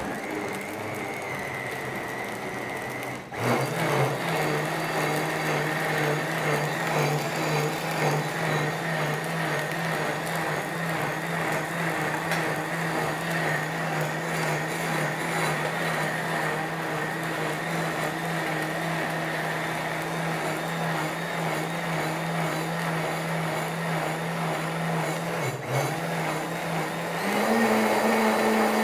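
OmniBlend high-speed blender running on a load of grapes and parsley, chopping it to a pulp for juice. The motor steps up in speed about three and a half seconds in. It dips briefly near the end, then steps up again to a higher, louder speed.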